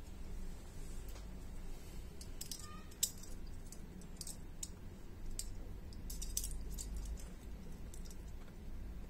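Small metal parts of an assembled metal puzzle model spider clicking and clinking lightly as it is handled and its jointed legs are moved, with a sharper click about three seconds in, over a low steady rumble.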